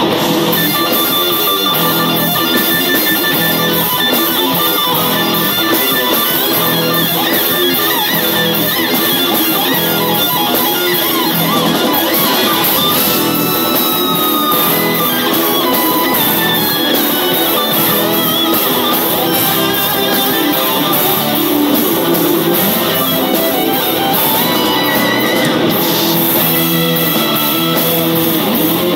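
Live instrumental rock band playing: lead electric guitar over bass and drums, loud and steady, with a few long sliding notes.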